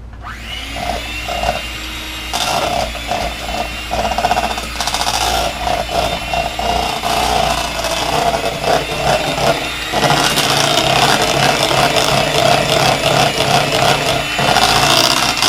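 Electric mixer running, beating softened cream cheese and an egg into a filling; a steady motor whine that starts suddenly and grows louder a couple of seconds in and again about two-thirds of the way through.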